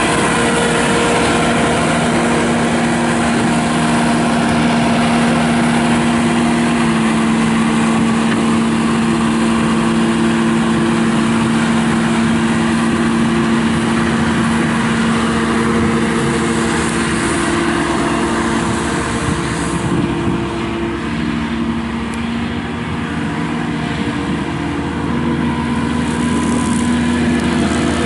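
Bobcat S650 skid steer running hard, with its hydraulic-driven Brushcat twin-motor rotary brush cutter spinning as it mows. A steady, loud engine note that eases off slightly for a few seconds about two-thirds through.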